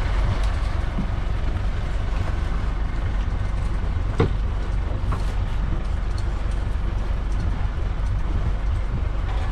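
Motor boat engine idling in neutral with a steady low rumble, and one knock about four seconds in.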